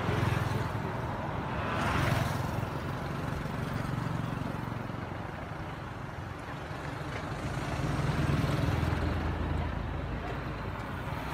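Road traffic going by: a steady low engine hum that swells and fades several times as motorbikes and other vehicles pass.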